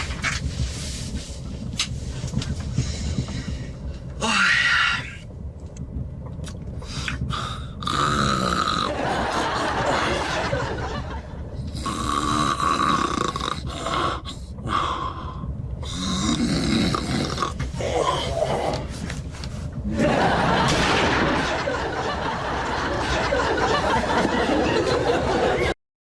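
Loud, exaggerated human snoring in changing tones, with grunts, over a steady low rumble.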